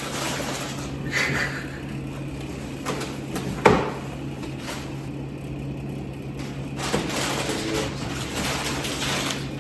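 A door slams shut once with a sharp thud about three and a half seconds in, with a couple of lighter knocks around it over a steady low hum.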